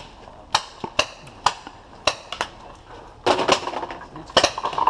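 Sharp clicks and knocks, about two a second, then from about three seconds in a dense rattle of paintballs being poured from a tube pod into a paintball marker's hopper.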